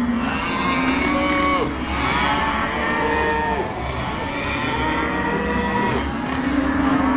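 Cartoon stomach-growl sound effects: long, drawn-out low growls that slide up and down in pitch, several overlapping one after another.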